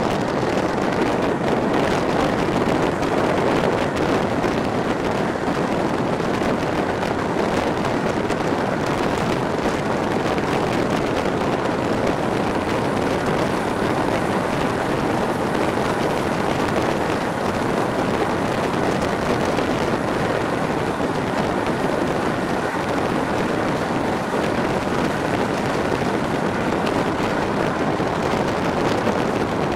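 Passenger train running at speed, heard at an open coach window: a steady rush of wind over the microphone mixed with the rolling noise of the wheels on the rails.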